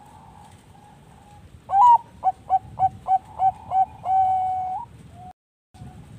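Zebra dove (Bangkok perkutut) singing close by: an opening note, six short staccato coos about three a second, then one long held coo. Other doves coo faintly in the background.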